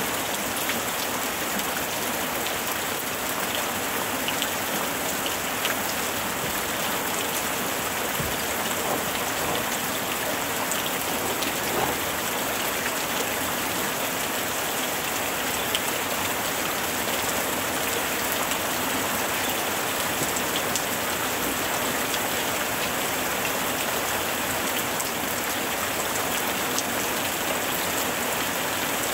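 Steady rain: a continuous even hiss with scattered small drop ticks.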